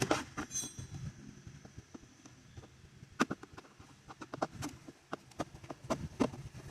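Irregular light clicks and taps of a hand tool undoing the screws that hold the plastic AC blower cover, mostly in the second half.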